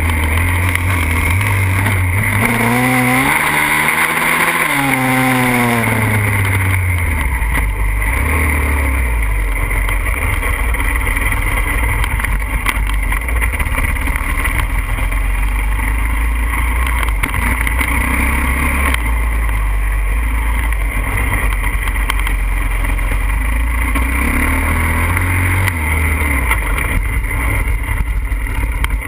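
Pitster Pro 140cc pit bike's single-cylinder four-stroke engine running while riding, revving up and falling back a few seconds in, then holding a steady lower note, with another short rise and fall near the end.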